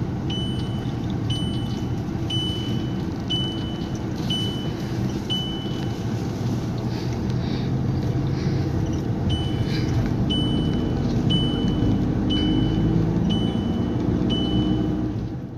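Road and engine noise inside a moving Volkswagen Jetta's cabin. A short, high electronic beep sounds about once a second, six times, then after a pause of a few seconds six times more.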